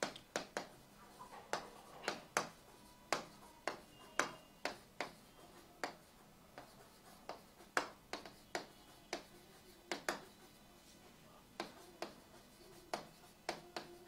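A marker tapping and scraping on a whiteboard during handwriting: short, sharp taps at an irregular pace, roughly two a second.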